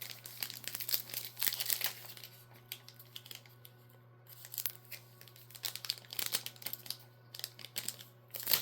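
Pokémon booster-pack foil wrapper crinkling and trading cards being handled: clusters of short crinkles and clicks, with a quieter pause in the middle. A steady low hum runs underneath.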